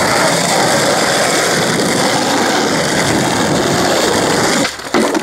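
Skateboard wheels rolling over rough asphalt, a steady rolling noise. It drops away near the end, with a single sharp knock.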